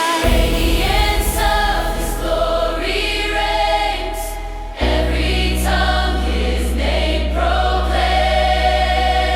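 Electronic dance music with choir-like sustained vocal pads over a heavy bass; the bass cuts out for a moment and comes back in fuller about five seconds in.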